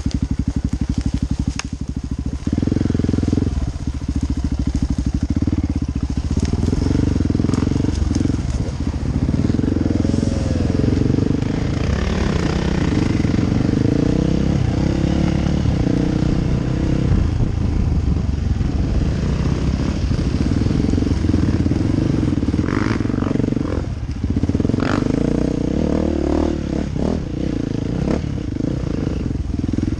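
Dirt bike engine running while riding off-road, steady and even for the first couple of seconds, then opening up and revving up and down over the rough track, with short knocks and clatter from the bike.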